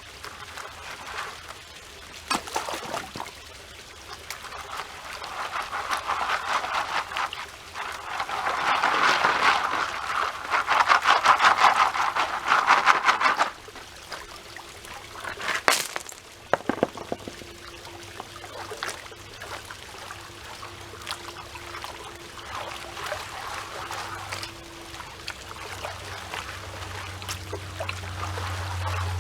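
Water trickling and splashing as gravel is worked in a gold pan at a creek pool, with several seconds of louder sloshing and rattling in the middle and a single sharp knock after it.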